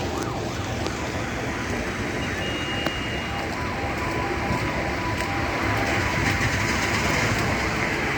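Steady city street noise with an emergency vehicle's siren rising and falling in quick sweeps, heard near the start and again about four seconds in.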